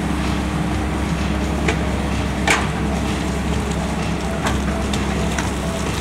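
Tracked excavator's diesel engine running steadily, with a few sharp metallic knocks from the bucket and boom as it digs wet dirt.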